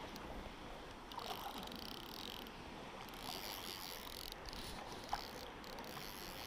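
Faint steady sound of shallow river water running and rippling around a wading angler's legs, with a small knock about five seconds in.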